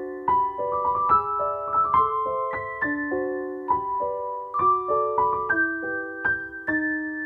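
Background music: a gentle piano melody of single struck notes, a few a second.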